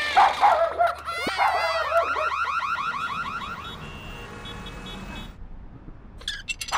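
Cartoon sound effects: a wavering whistle-like glide, then a fast run of rising electronic chirps, about six a second, that fades away, followed by faint high beeps and a few clicks near the end.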